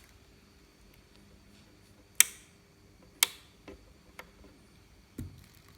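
Two sharp clicks about a second apart, followed by a few fainter ticks and a soft low knock near the end.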